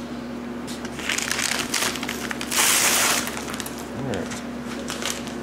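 A cardboard packing sheet being pulled off a snowblower's auger housing: irregular crinkling and scraping from about a second in, with a louder rush of cardboard about two and a half seconds in. A steady low hum runs underneath.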